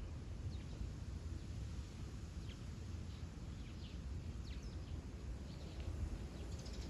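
Small birds chirping in short, scattered calls over a low, steady outdoor rumble.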